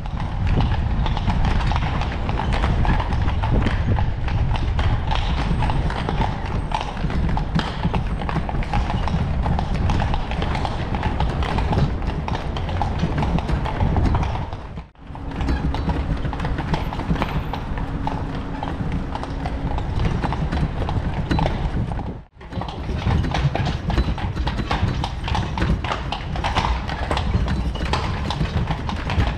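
Horse hooves clip-clopping steadily on cobblestones over the low rumble of carriage wheels, heard from aboard a horse-drawn carriage. The sound cuts out briefly twice.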